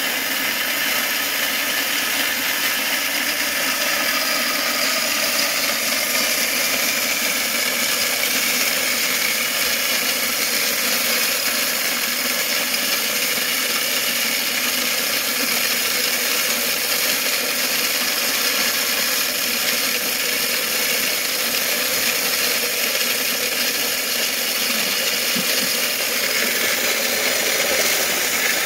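Small electric corn grinder running steadily under load, grinding dried corn kernels into cornmeal.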